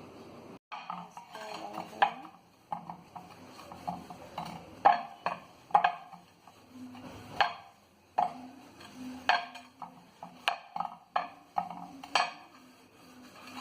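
Irregular clinks and knocks, about one a second, of a dish being handled and scrubbed during cleaning.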